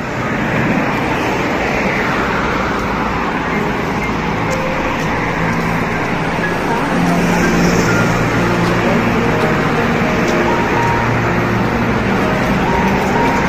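Steady street traffic noise: an even rush of cars going by on the road.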